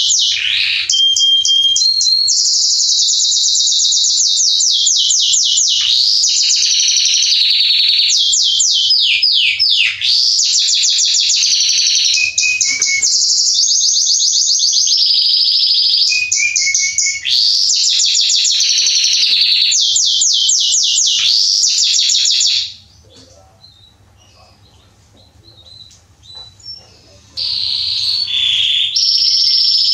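Male Belgian canary singing: a long run of fast trills and rapidly repeated notes, pausing for about five seconds near the end before starting again.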